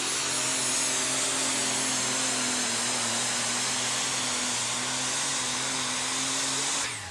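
Super stock pulling tractor's turbocharged engine running flat out under load as it drags the weight-transfer sled, a loud steady drone with a high whine on top. The sound cuts off suddenly near the end.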